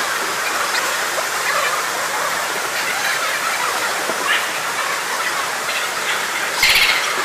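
Busy exhibition-hall ambience: a steady wash of crowd noise with scattered small clicks and a short louder burst near the end.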